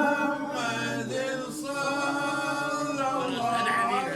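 Unaccompanied male religious chanting: a melodic salawat-style chant, held and bending in pitch, with no instruments.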